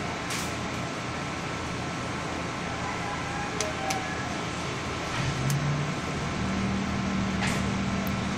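Steady background noise with a few faint clicks; about five seconds in, a low steady engine-like hum comes in, steps up in pitch and holds.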